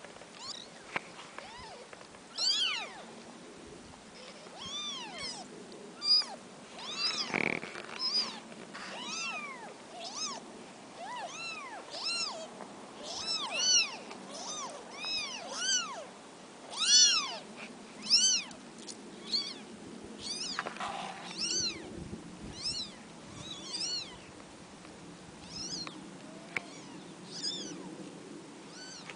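Newborn kittens mewing: short, high-pitched cries that rise and fall, repeated about once a second, some overlapping.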